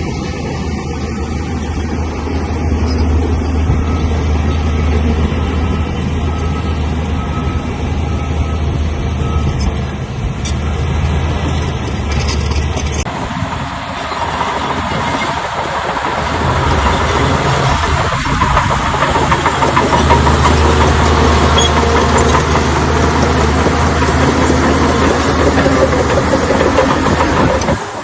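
Bulldozer diesel engine running steadily. About halfway it changes abruptly to a louder, rougher and noisier sound.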